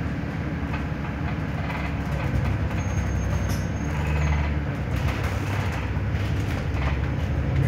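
Stagecoach Gold bus engine running, heard from inside the passenger saloon as a steady low hum with light interior rattles, swelling slightly about four seconds in.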